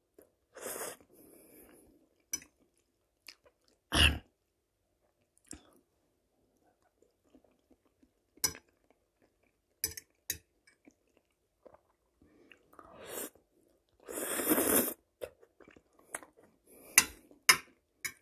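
A person eating spaghetti with fried mushrooms close to the microphone: wet chewing and mouth noises with scattered short clicks. A louder sound comes about four seconds in, and a longer, noisier one a little past the middle.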